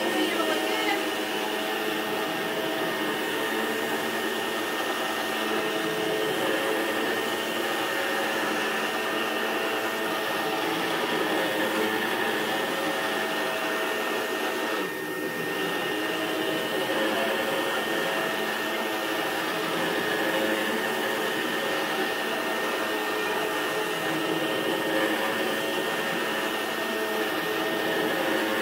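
Rainbow vacuum cleaner running steadily as the AquaMate carpet shampooer head is pushed back and forth on its dry cycle, sucking water back out of the carpet. The sound dips briefly about halfway through.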